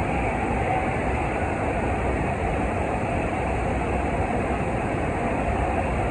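Steady rush of water pumped in a thin sheet up a FlowRider wave machine's padded surface, a continuous even roar.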